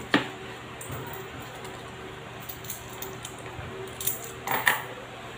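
A coloured pencil working on paper: a sharp tap at the start, then a few short scratching strokes about four seconds in, over a faint steady hum.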